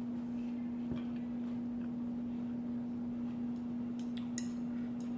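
Chewing a salad with cashews: faint, irregular crunches and mouth clicks, with a louder crunch about four seconds in, over a steady low hum.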